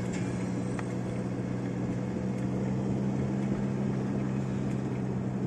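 Vehicle engine running with a steady low drone and road noise, heard from inside the vehicle as it drives along a rough, bumpy road under construction.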